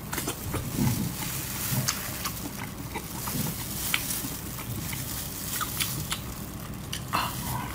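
Close-up mouth sounds of eating food coated in chili oil: irregular wet chewing, lip smacks and small slurps, with a faint steady hum underneath.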